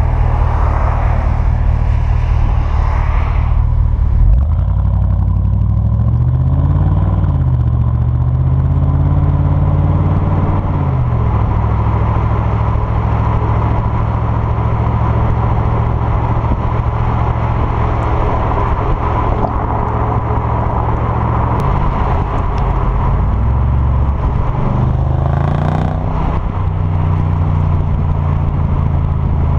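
Exhaust of a Mercedes SL55 AMG's supercharged V8, ECU-tuned with the resonators deleted, heard right at the tailpipes while driving. Engine pitch rises and falls a few seconds in and again near the end, holding steady in between, over a steady rush of wind and road noise.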